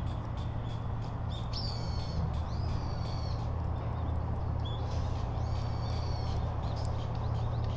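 Birds calling repeatedly in short high calls over a steady low hum and background noise, with faint sharp ticks throughout.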